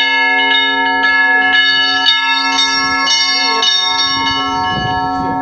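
Several bells of different pitch struck by hand in quick succession, about two strikes a second and then faster, with a low bell tone humming steadily underneath. The strikes stop about four seconds in and the bells are left ringing on.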